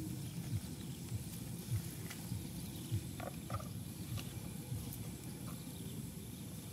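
Frogs croaking in a low pulse repeated about twice a second, with a few faint knocks as a cleaver and green onions are picked up from the chopping block.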